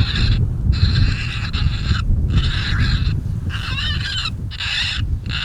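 Coyote vocalizations: a run of short barks and yips, roughly one a second, one near the middle wavering in pitch. Wind rumbles steadily on the microphone underneath.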